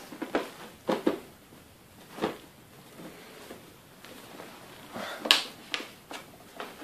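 Scattered light clicks and knocks from computer case parts being handled, about half a dozen, the loudest a sharp click about five seconds in.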